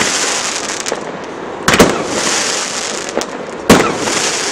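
Aerial fireworks shells bursting with sharp bangs: a close double bang nearly two seconds in and another about two seconds later, with a steady high hiss between the bursts.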